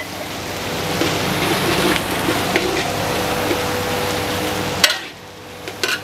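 Sliced onions and garlic sizzling in hot oil in a steel wok while a metal wok spatula stirs and scrapes them. The sizzle swells, then drops off suddenly about five seconds in.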